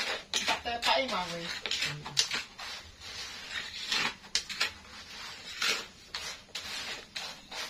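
Spatula scraping and stirring krupuk crackers through hot sand in a clay frying pan, a run of short gritty strokes. A voice is heard briefly about a second in.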